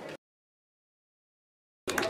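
Dead silence at an edit between two shots. A faint murmur of voices stops abruptly just after the start, and louder voices cut in suddenly near the end.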